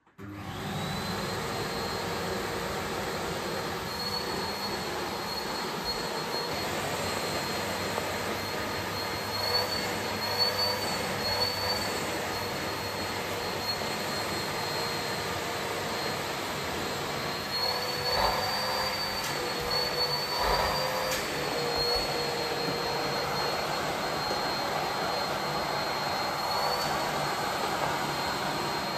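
Bosch BGS21X320 bagless canister vacuum cleaner switched on and starting abruptly, then running steadily with a high whine. The pitch wavers and the sound swells now and then as the hose nozzle sucks at a fluffy slipper.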